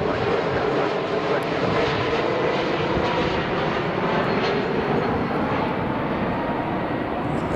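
Aircraft engine noise: a steady, loud rush with a faint high whine running through it.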